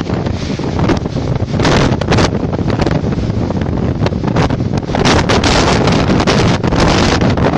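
Storm-force wind buffeting the microphone in loud, gusty rushes.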